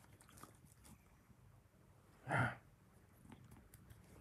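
Quiet, faint rustling of a hand stroking a cat's fur, with one short, low breathy vocal sound a little over two seconds in.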